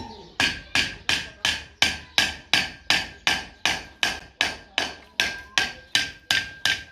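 A hammer striking the metal of a hand pump in a steady run of about nineteen blows, close to three a second, each blow leaving a short metallic ring.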